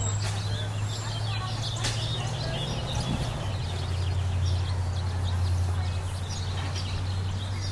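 Many small birds chirping outdoors over a steady low hum.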